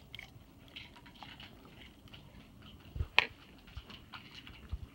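Dog chewing watermelon: a run of small wet smacks and clicks, with a sharp click about three seconds in.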